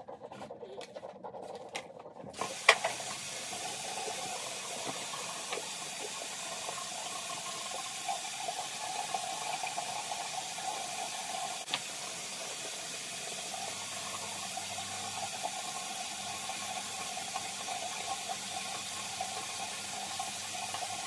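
Bathroom sink tap running steadily from about two seconds in, with a sharp clack just after the water starts and a smaller click later.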